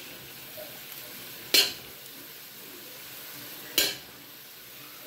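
Two sharp clinks of a spoon against cookware, about a second and a half in and again near four seconds, over a steady faint sizzle from a pot of vegetables cooking on the stove.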